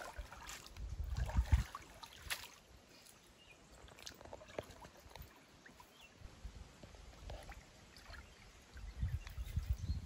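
River water splashing and sloshing, faint and uneven, with scattered small knocks and clicks, as people move through the water laying a fishing net.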